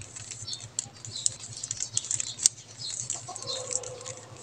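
3x3 Rubik's cube being turned quickly through a repeated move sequence: a rapid, irregular run of light plastic clicks and rattles as the layers twist.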